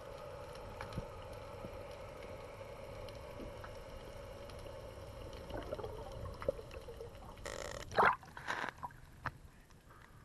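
Underwater sound through a diving camera: a steady low hum with faint scattered clicks. About eight seconds in, a few louder splashes come as the camera breaks the surface.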